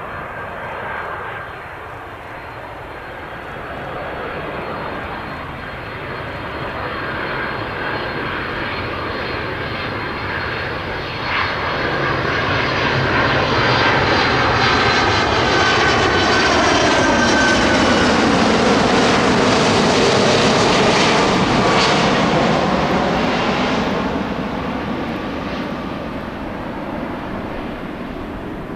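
Boeing 767-300ER airliner on final approach flying low overhead. Its jet engines' whine and roar build steadily, are loudest as it passes over about halfway through, then fade as it moves away.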